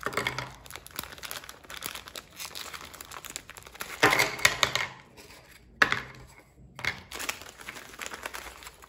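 Crinkly biscuit-packet wrapper rustling and crackling as it is opened and the biscuits are pulled out, in irregular bursts, loudest about four seconds in and again near six seconds.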